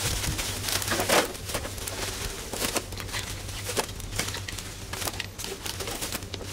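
Irregular rustling and crackling, many sharp crackles at uneven spacing, over a faint low steady hum.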